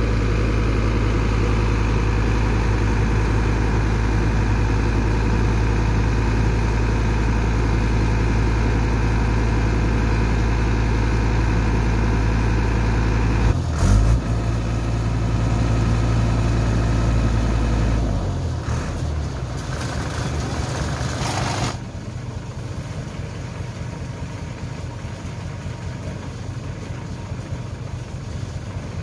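Truck engine of a Furukawa Unic truck-mounted crane running steadily with a deep hum while the crane works, with a sudden knock about halfway. The sound then falls away in two steps to a quieter, thinner run for the last quarter.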